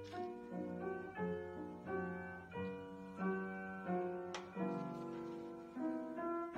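Upright piano playing a song's melody solo, with lower notes held under it.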